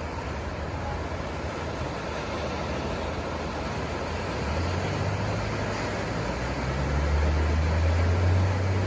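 Ocean surf washing steadily on a sandy beach. A low engine rumble swells in underneath from about halfway, loudest near the end.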